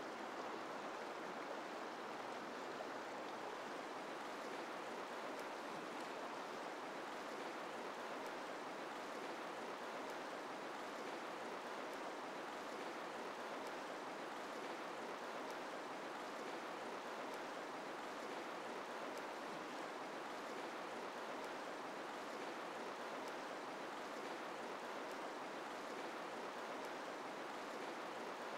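River water rushing over rocks in rapids: a steady, even rush with no breaks.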